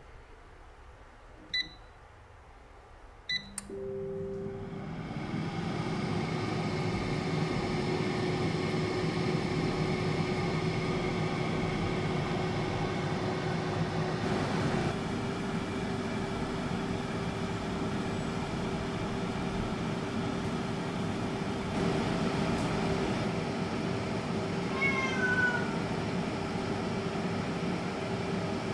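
Navplus AF-338 air fryer's touch panel beeping twice at button presses, then its fan starting about three seconds in and building over a couple of seconds into a steady whirring hum of moving air. A short high gliding cry sounds near the end.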